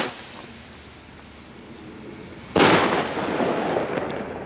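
Funke Kometenschauer 20-gram firework rocket bursting with a sudden loud bang about two and a half seconds in, after its climb has faded, followed by a fading tail of scattered small crackles as the comets spread.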